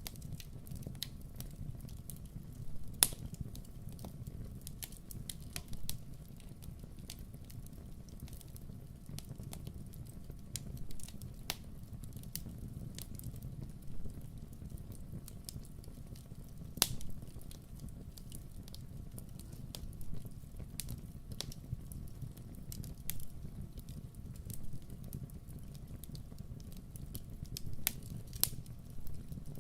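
Campfire burning: irregular sharp crackles and pops of the wood over a steady low rumble of the flames. The loudest pops come about three seconds in and again near the middle.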